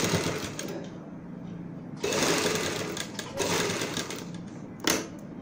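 Sewing machine stitching in short runs that start and stop: one fading out about a second in, another about two seconds in and a brief one soon after, then a single sharp click near the end.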